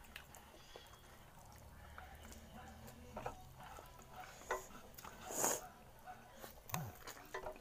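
Quiet eating sounds of instant noodles being eaten with chopsticks from ceramic bowls: a few short slurps and clicks, the loudest a brief slurp about five and a half seconds in.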